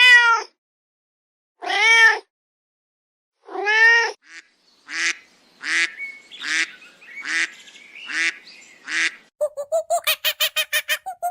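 Waterfowl honking: three loud, drawn-out honks about two seconds apart, then a run of shorter honks a little under a second apart. Near the end a fast run of short pitched calls starts, about ten a second.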